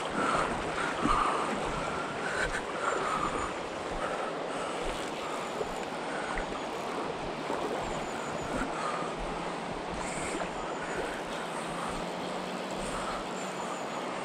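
Steady rushing of a shallow, fast mountain river running over a gravel and stone bed.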